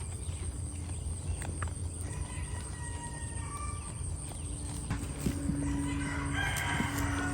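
Rooster crowing, with louder animal calls from about five seconds in, over a steady low rumble.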